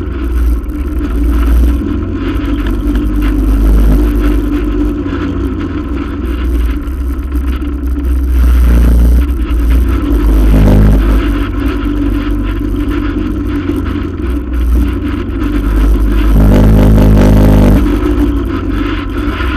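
ATV engine running close up under a front-rack camera mount, its revs rising and falling with the throttle and loudest for a stretch near the end.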